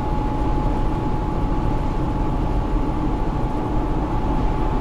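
Steady road and tyre noise inside a car cruising at highway speed, about 106–109 km/h, with a thin steady whine running under it.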